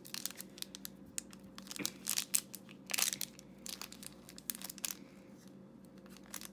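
A small toy packet's wrapper being torn and crinkled by hand: irregular crackles and rustles, densest about two to three seconds in.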